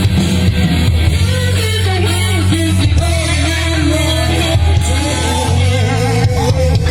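Blues-rock music played loud over a PA line-array system, with heavy bass and guitar, and a wavering lead vocal or guitar melody coming in about two seconds in.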